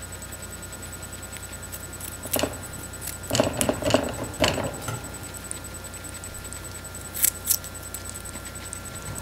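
Guinea pig biting and gnawing a raw carrot, making short sharp crunches in clusters: one about two and a half seconds in, a quick run of crunches about a second later, and two more near the end.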